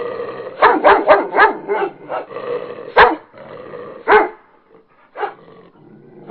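A dog barking: a quick run of about five barks in the first two seconds, then single barks about three, four and five seconds in, the one at three seconds the loudest.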